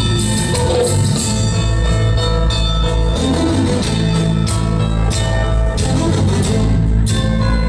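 Loud dance music played by a DJ over a sound system, with a heavy, steady bass beat.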